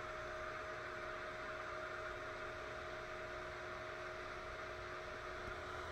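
Ender 2 Pro 3D printer just powered on, its small cooling fan spinning: a steady hum with faint whining tones.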